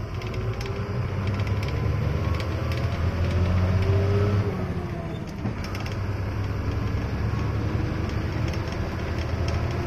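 Ashok Leyland 12-wheel truck's diesel engine running on the road, heard inside the cab as a steady low drone with a faint whine above it and scattered rattles. It grows louder about three to four seconds in.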